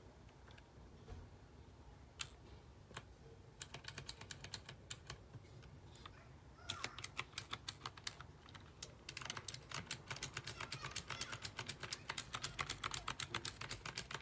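Keys of a Razer Tartarus Pro gaming keypad with analog-optical switches being pressed. A few single clicks give way to runs of fast, rapid key presses, with a brief pause midway.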